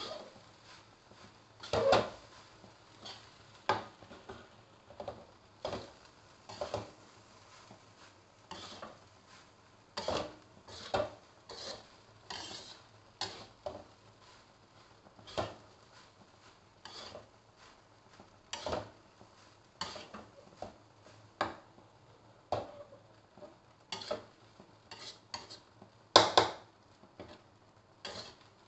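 Spatula scraping and knocking against a wok while stir-frying fried rice, in irregular strokes about once a second. The loudest knocks come about two seconds in and near the end.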